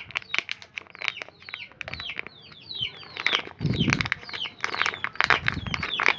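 Small birds chirping: a run of short, falling chirps, several a second, over scattered clicks and two low thuds.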